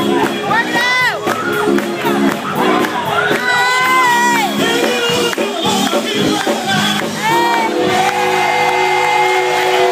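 Live gospel music from a church choir and band, with the congregation shouting and whooping over it in short rising-and-falling calls; a chord is held from about two-thirds of the way through.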